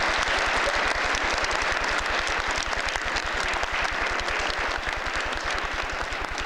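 A crowd of schoolchildren applauding: dense clapping that slowly thins out near the end.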